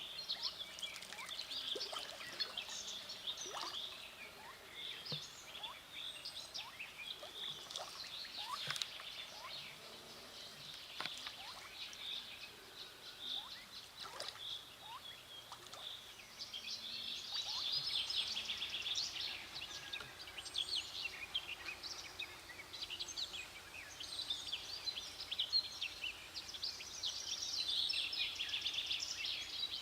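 Birds chirping and twittering in a dense, busy chorus, growing fuller and louder a little past the halfway point and again near the end.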